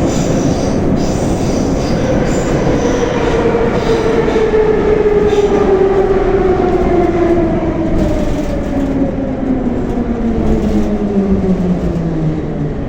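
Moscow Metro 'Nomernoy' (81-717/714) train running, its traction-motor and gear whine falling steadily in pitch over rumbling wheel noise as the train slows.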